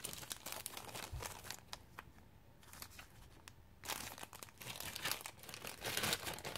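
Clear plastic bag crinkling as it is handled in the hands: scattered crackles at first, a quieter stretch in the middle, then denser crinkling from about four seconds in.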